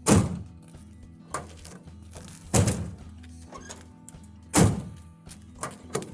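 2005 Toyota Tundra tailgate being worked to test a newly fitted latch: three heavy thunks about two seconds apart, with lighter clicks between them. Background music plays underneath.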